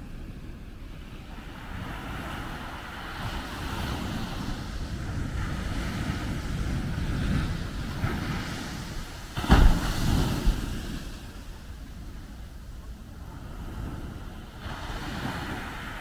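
Small ocean waves breaking on a sandy beach, the surf swelling and washing up the shore. A little past the middle, one wave breaks with a sudden loud crash, followed by a fizzing wash, and another wave rises near the end.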